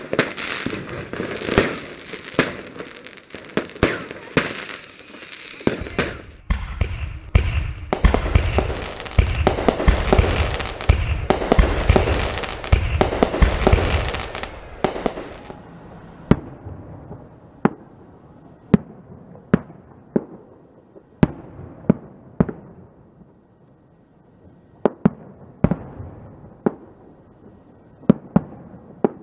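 Fireworks going off: a dense barrage of overlapping bangs and crackle for about the first half, then single sharp bangs about once a second.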